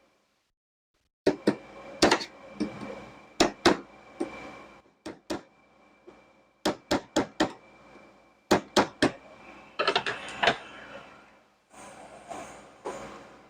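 A series of sharp metal taps and clicks in short irregular groups, with brief pauses between: the small metal tabs on 1156 bulb sockets being bent flat so the sockets fit.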